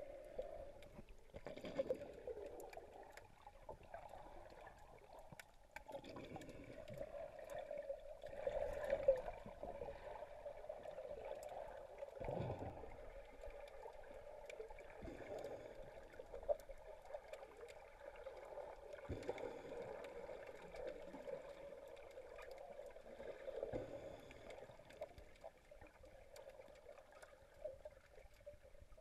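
Muffled underwater ambience heard through a submerged camera: water sloshing and gurgling, with scattered faint clicks and a few soft low thumps.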